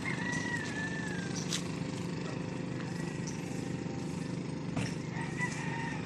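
An engine running steadily. A thin, drawn-out high call glides slowly down at the start and comes again near the end.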